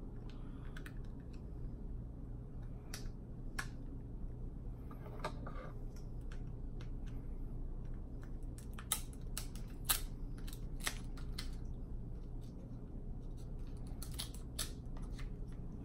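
Cooked snow crab leg shells cracking and being snipped with kitchen scissors: a run of sharp, separate cracks and clicks, sparse at first and coming thick and fast in the second half.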